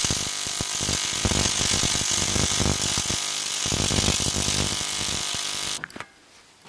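TIG welding arc on aluminium sheet, a steady crackling buzz that stops abruptly near the end.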